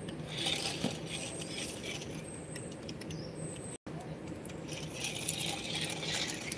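High-heeled ankle boots stepping on concrete, light scattered clicks, with a light metallic jingling.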